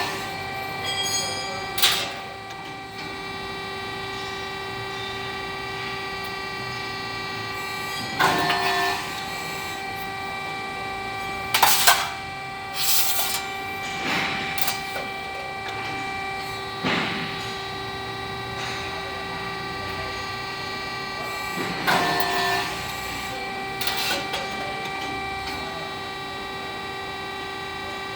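CNC press brake running with a steady hum of several fixed tones. A short loud clank or hiss comes every few seconds as the machine cycles through bends.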